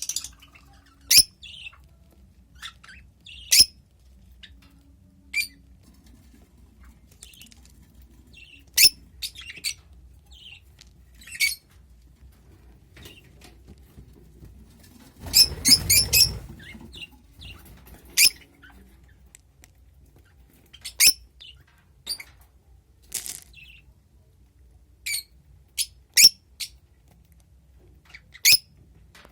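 A bird chirping: short, sharp, high-pitched calls every second or few seconds, with a quick, louder flurry of calls over a rustling noise about halfway through.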